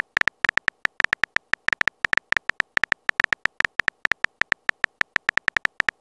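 Phone keyboard typing sound effect: a rapid, uneven run of short key-tap clicks, several a second, as a message is typed out letter by letter.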